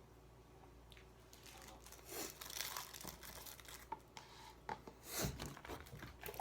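Crinkling and tearing of paper or a wrapper being handled, in a few short bursts after a quiet first second or so.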